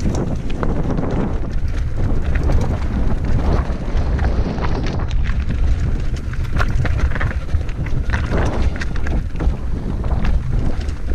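Wind rushing over the microphone of a bike-mounted camera while riding a mountain bike, with the rumble of tyres and frequent clicks and rattles from the bike over rough ground.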